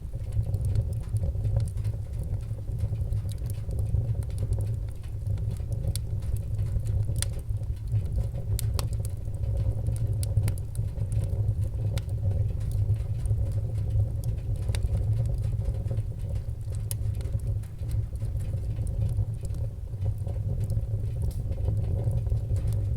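Wood fire burning in a wood stove: a steady low rumble with scattered sharp crackles and pops throughout.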